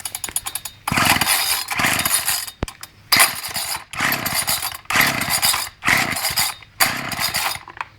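Ryobi 30cc two-stroke whipper snipper being pull-started over and over: about seven loud pulls of the recoil starter in quick succession, the engine turning over on each without running steadily.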